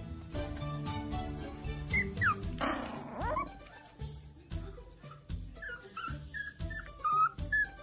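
A puppy's short high-pitched cries, a couple about two to three seconds in and several more in the second half, over background music with a steady beat.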